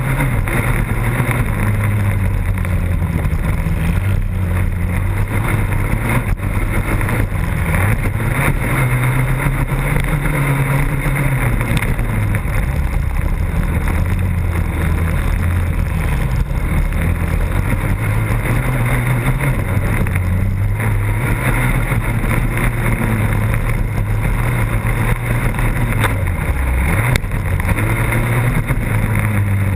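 Racing quad's engine heard from a camera mounted on the machine, loud throughout, revving up and easing off again and again every few seconds as it runs the motocross track.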